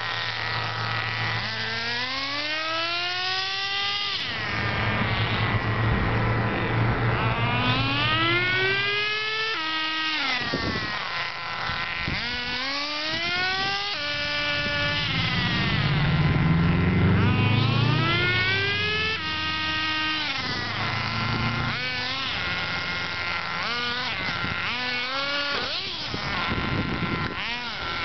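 Nitro RC buggy's small glow-fuel engine, revving up in a rising whine over and over, each climb ending in a drop in pitch as it changes gear; near the end the rises come shorter and quicker.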